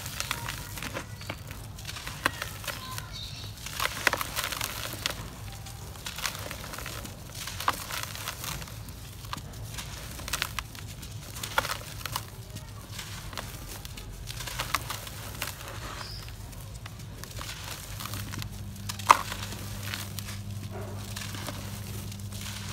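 Hands crumbling chunks of dry cement and sifting the gritty powder through the fingers: irregular crunches and crackles over a soft hiss of falling grains, with one sharper crack near the end. A faint low hum comes in about three-quarters of the way through.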